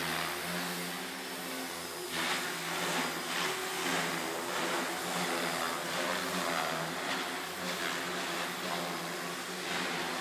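MSH Mini Protos electric RC helicopter in flight: the steady whine of its brushless motor and drive with the rush of the spinning rotor blades, rising and easing slightly as it manoeuvres.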